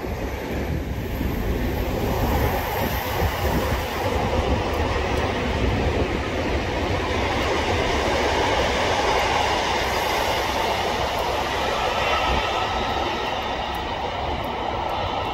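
Green Cargo freight train's wagons rolling past on the rails, a loud, steady rumble that builds over the first couple of seconds and then holds.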